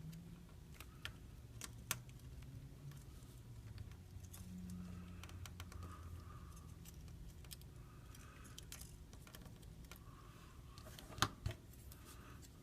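Scattered light clicks and taps from small tools and tiny parts being handled during a phone repair, with a sharper click near the end, over a faint low steady hum.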